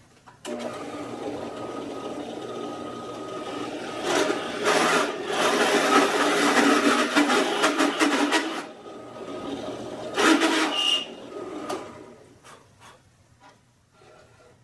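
Benchtop drill press motor starting and running with a bit drilling the stem countersink into a briar pipe block. About four seconds in the bit is fed into the wood and cuts loudly for about four and a half seconds, then cuts again briefly around ten seconds in. The sound drops away near twelve seconds.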